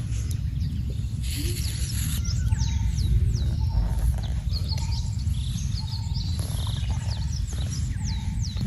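Birds calling with repeated quick falling whistles over a steady low rumble.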